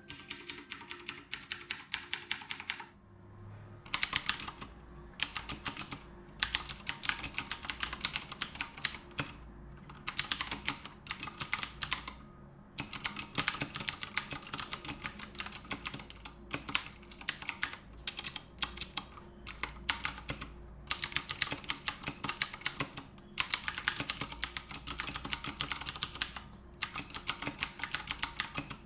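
Typing on an Akko 3084 mechanical keyboard with clicky blue switches: fast runs of key clicks broken by brief pauses.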